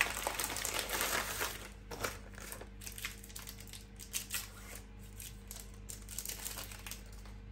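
Plastic Mars bar wrapper and packet crinkling as they are handled and torn open. The crinkling is busiest for about the first two seconds, then turns to scattered crackles over a faint steady hum.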